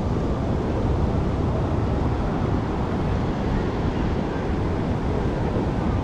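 Wind buffeting the microphone, heaviest in the lows, over the steady wash of ocean surf.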